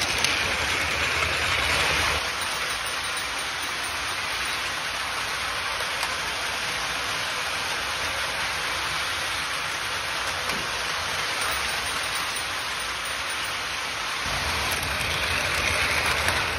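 Plarail battery-powered toy trains running on plastic track: a steady, even whirring hiss of small motors and plastic wheels, fuller for the first couple of seconds and again near the end as a train passes close.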